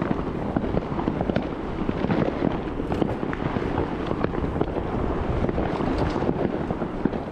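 Fireworks and firecrackers popping and crackling in a near-continuous scatter of short bangs, over wind buffeting the microphone of a moving bicycle.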